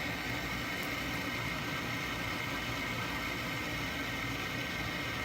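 The main gas burners of a 1904 Ruud instant water heater burning with a steady hiss. They are being run to burn off the debris clogging them.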